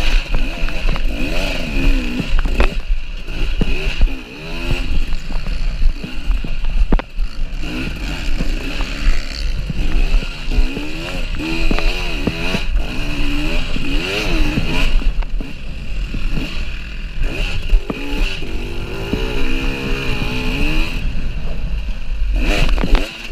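KTM EXC 300 two-stroke enduro motorcycle engine revving hard and falling back over and over as the rider works the throttle through the gears, with brief throttle-off dips, heard from on the bike.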